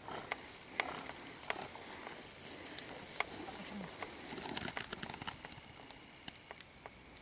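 Faint rustling of tall grass with scattered small clicks, a little louder and busier around four to five seconds in.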